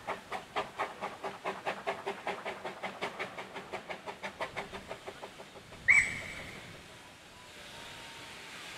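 Two-foot gauge steam locomotive hauling a train, its exhaust beating about five times a second. About six seconds in the beats stop and a single short, sharp whistle toot sounds, the loudest thing here, followed by a steady hiss of steam that slowly grows.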